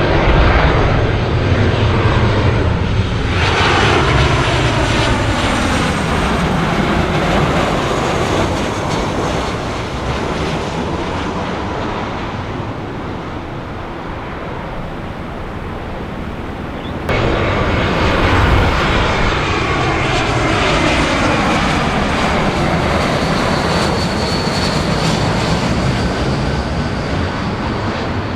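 Jet airliner engines as a plane passes close by, the pitch falling as it goes past. About 17 seconds in the sound cuts abruptly to a second passing jet, whose pitch also falls.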